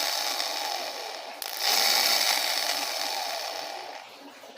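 Dafra Zig 50cc scooter's small electric starter motor spinning freely off the bench, powered straight from the battery: a high-pitched whir that stops briefly about a second and a half in, then runs again and winds down near the end. It is freshly rebuilt with new brushes and turning properly counterclockwise.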